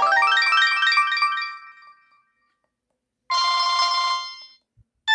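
Samsung GT-E2370 mobile phone ringtones: a melody ends in a run of falling notes that fades out within about two seconds. After a short silence a second, brief ringtone of several tones plays for about a second, and another starts right at the end.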